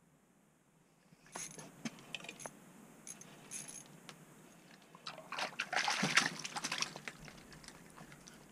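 Light clinks and rattles, then a louder burst of clattering and rustling about five seconds in as an ice fishing rod is picked up and handled.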